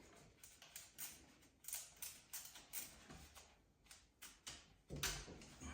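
Faint, irregular clicks and light taps of hands working a neutral wire onto a GFCI receptacle's terminal, with a louder knock about five seconds in.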